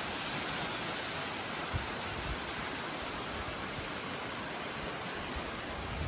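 Steady rushing of water, with a few dull low bumps about two seconds in and near the end.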